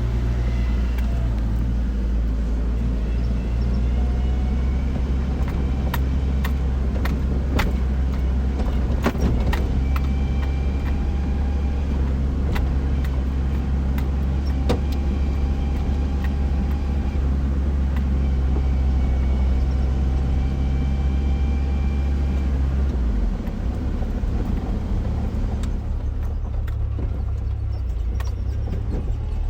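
Truck cab interior on the move: a steady low engine and road drone with scattered rattles and clicks. The drone eases off and changes character about 23 seconds in.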